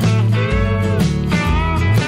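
Background music: a guitar tune with notes that bend in pitch, over a steady bass and beat.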